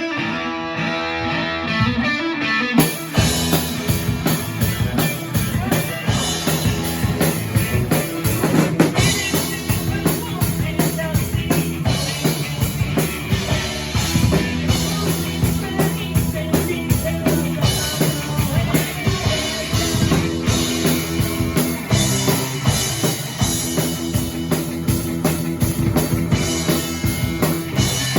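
Rock-style band music with a drum kit. A guitar-led opening gives way about three seconds in to a full band with kick and snare drums keeping a steady beat.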